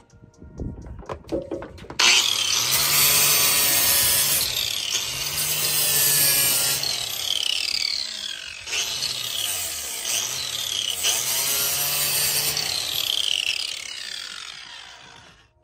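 Angle grinder with a flap disc sanding the edge of the speaker cutout in a wooden subwoofer box. After a few knocks it starts up suddenly about two seconds in, and its pitch dips and rises as the disc bears on the wood. It winds down near the end.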